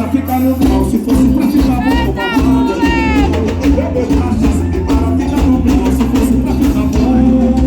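Forró music played live, with a steady low beat and a shaker rhythm; a voice sings or calls out briefly about two seconds in.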